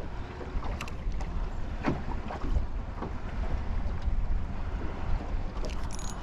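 Wind buffeting the microphone on a small fishing boat, a steady low rumble with a few light knocks and clicks.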